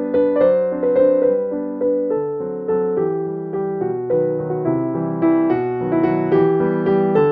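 Background piano music, a steady flow of notes that each strike and fade.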